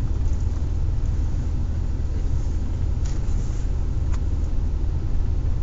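Car engine idling, a steady low rumble heard from inside the cabin, with a couple of faint clicks about three and four seconds in.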